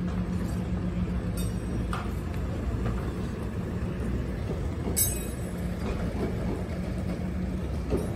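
Engine of the telescopic lifting machine running steadily with a low hum while it holds a large steel sculpture on its hook, with a few light clicks and one sharper click about five seconds in.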